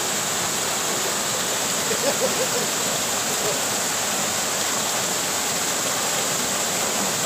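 Steady rush of a small waterfall pouring into a rock pool, with a brief voice about two seconds in.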